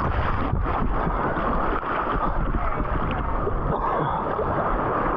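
Steady wind rumble on the microphone mixed with water noise aboard a boat.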